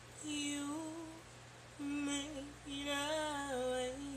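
A woman singing unaccompanied in gospel style: three wordless phrases, each note held with small slides between pitches, opening the song before the lyrics.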